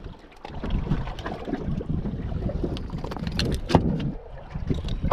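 Low, uneven rumble of a small boat at sea, with wind on the microphone. A few sharp clicks and knocks come about three and a half seconds in.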